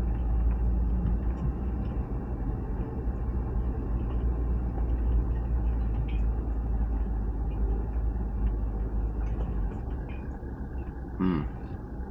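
Car moving slowly along a narrow rough track: a steady low engine and road rumble, with a few faint small knocks, easing off slightly near the end.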